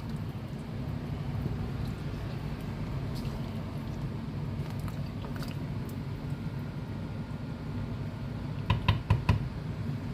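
Steady low hum while the banga soup cooks, with a quick run of four sharp metal clinks near the end as a utensil knocks against the cooking pot.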